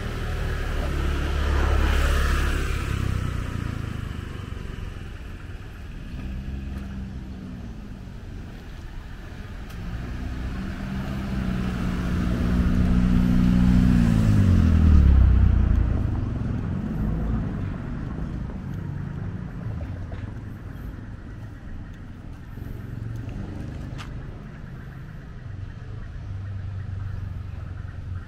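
Road traffic with a steady low rumble of passing vehicles. One engine swells louder in the middle, and its pitch drops as it goes by.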